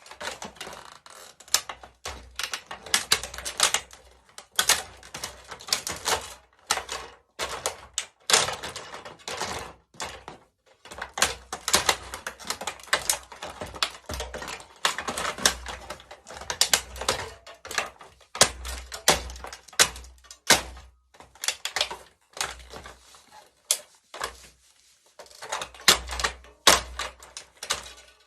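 A plastic toy remote-control car being crushed under high heels: a rapid, irregular run of sharp cracks and clicks over dull low thuds.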